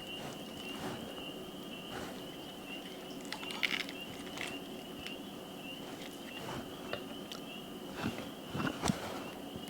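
Knife cutting thin slices of grilled chicken breast, with scattered short taps and crunches on the cutting board, a couple of louder clusters about a third of the way in and near the end. A steady high-pitched hum runs underneath.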